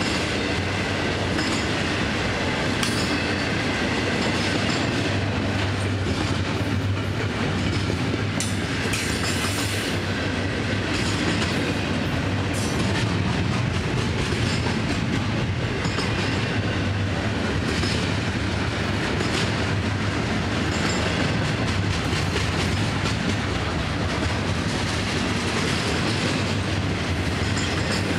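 FEC freight train of double-stack container well cars rolling past: a steady rumble of steel wheels on rail, with scattered clicks as the wheels pass over the rail joints.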